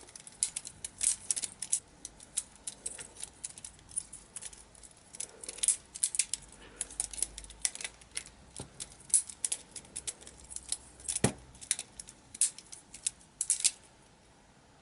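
A Lego brick butterfly knife being flipped by hand: its plastic handles and blade clack and rattle in quick, irregular clicks, with one heavier knock about eleven seconds in, and stop shortly before the end.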